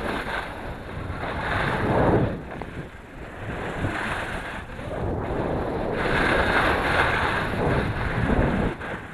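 Skis scraping and hissing over packed, groomed snow during a downhill run, mixed with wind rushing over the microphone; the noise swells and fades in waves as the skier turns.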